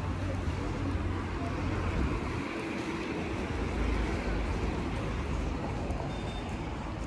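Street traffic noise: car engines and tyres running with a steady low rumble, easing off briefly a few seconds in and then building again.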